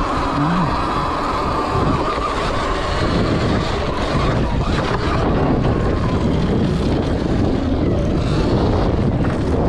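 Sur Ron X electric dirt bike under way, its electric motor and drivetrain giving a high whine that fades about halfway through, over steady wind noise on the microphone and tyre noise on dirt.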